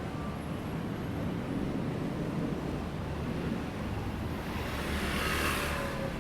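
Busy city street traffic with a steady low rumble, and a brief loud hiss that swells and fades about five seconds in.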